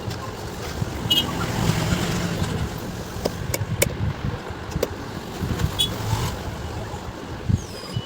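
Hand work on a mixer grinder's motor housing while its screws are worked loose: scattered sharp metal clicks and knocks over a rough scraping and handling noise.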